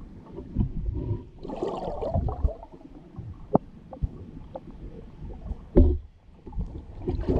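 Muffled water sloshing and gurgling against a camera held at or just under the water surface. It comes in irregular low rumbling surges, with a few sharp knocks, the loudest about six seconds in.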